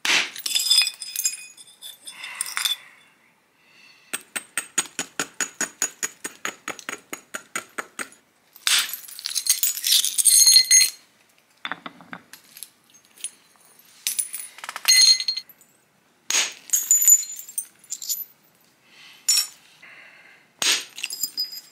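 Flintknapping: a hammerstone and an antler billet striking a flint core and flakes, the stone giving sharp, glassy clinks that ring. About four seconds in comes a run of quick, even light taps, about five a second, that lasts some four seconds. After it, separate bursts of strikes and clinks follow every second or two.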